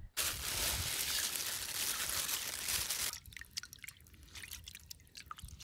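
A steady hiss for about three seconds, then, much quieter, soft watery sloshing and small splashes as hands rub rice and dal together in water in a steel bowl to wash them.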